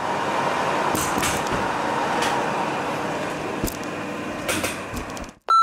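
Metal lathe running with its four-jaw chuck spinning: a steady machine noise with a faint whine, getting gradually quieter. Several sharp knocks and clatters break through it as someone trips on a camera tripod. A beep starts at the very end.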